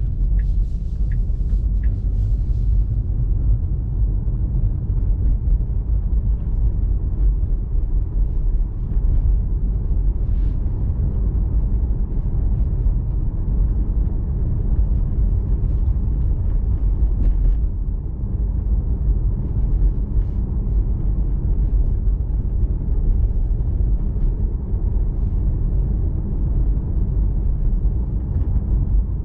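Steady low road and tyre rumble heard inside a moving electric car's cabin, a 2020 Tesla Model 3 Performance.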